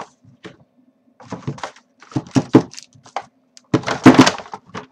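Paper shopping bag being handled and rummaged through, in several short bursts of rustling and knocks, the loudest and longest about four seconds in.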